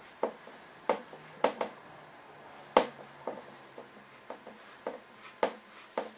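Hand screwdriver turning a screw out of a Stihl backpack blower's strap mount on its plastic frame: irregular sharp clicks and light knocks, a little under one a second, the loudest a little before halfway.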